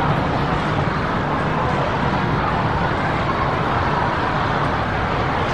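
Steady, even noise from an Airbus A321neo's jet engines as it climbs away after takeoff.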